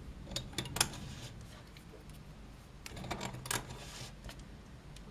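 Quiet scattered plastic clicks and taps of rubber bands being stretched and snapped onto the clear plastic pegs of a Rainbow Loom, in a cluster about half a second in and another around three seconds in.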